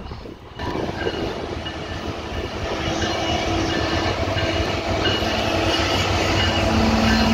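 CN freight train approaching and rolling past behind its diesel locomotive: engine rumble and wheel-on-rail noise growing steadily louder, with thin high steady tones coming and going over it.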